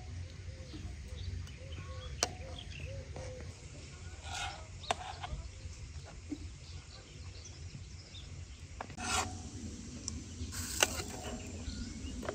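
Intermittent scraping and rubbing, with a few sharp clicks or knocks scattered through it, over a steady low rumble.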